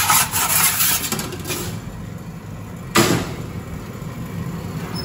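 Metal pizza peel scraping across the metal deck of a pizza oven as a baguette sandwich is pushed in, over a steady low hum from the running oven. A single sharp metallic clank about three seconds in.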